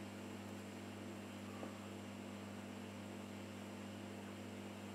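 Steady low electrical hum with a hiss underneath, and one faint tick about a second and a half in.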